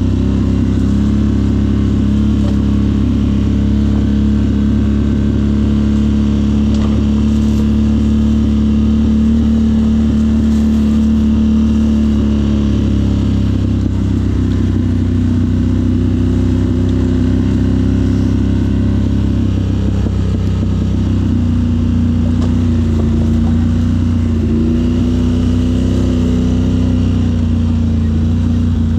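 Off-road vehicle engine running steadily under way. Its note holds even for the first half, then shifts and wavers in pitch as the throttle changes in the second half.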